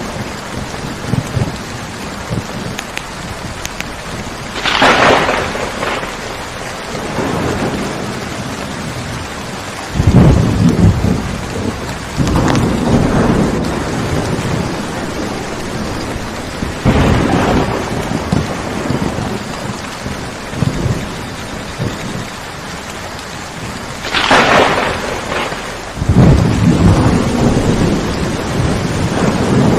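Steady rain with thunder breaking through several times: a sharp crack a few seconds in and another late on, and deep rumbles that set in suddenly about a third of the way through and again near the end.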